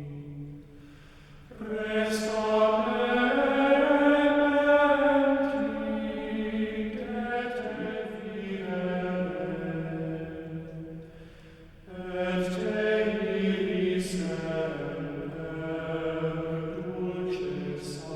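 Liturgical chant sung in long, sustained phrases, with short breaks between phrases about a second in and again near the middle.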